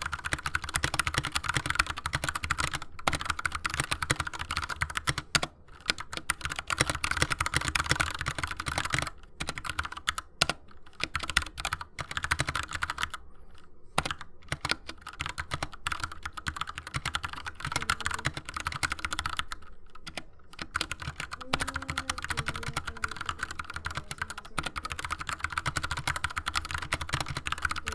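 Fast continuous typing on a Kemove Snowfox 60% mechanical keyboard with Gateron Brown tactile switches: a steady clatter of keystrokes, broken by a few short pauses.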